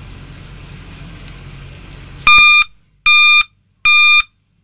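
A 24-volt reverse (backup) horn beeping on a bench test, wired straight to the battery: loud, high-pitched beeps in a steady on-off rhythm, a little more than one a second, starting about two seconds in. The horn is working.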